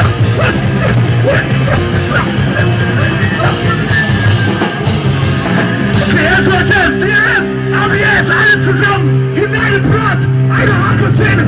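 Live punk rock band playing loud, with a vocalist shouting the lyrics into the microphone.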